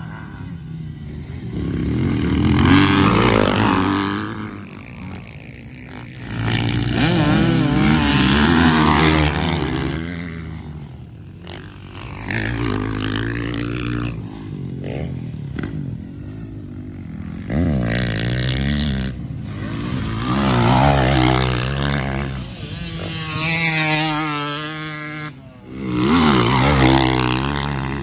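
Motocross dirt bikes passing one after another, engines revving hard with the pitch climbing and dropping. Each pass swells loud and then fades, about seven times.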